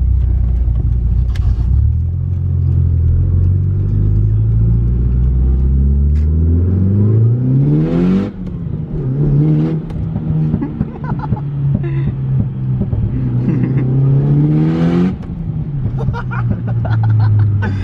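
Turbocharged Mitsubishi Evo 8 4G63 inline-four with an Evo 9 turbo and screamer pipe accelerating hard: the engine note rises steadily through a gear, drops with a short rush of noise at an upshift about 8 seconds in, climbs again and shifts once more about 15 seconds in, then settles lower.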